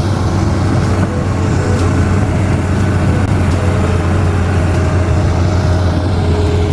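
Hitachi long-reach amphibious excavator's diesel engine running steadily with a deep hum, under load as the arm digs mud.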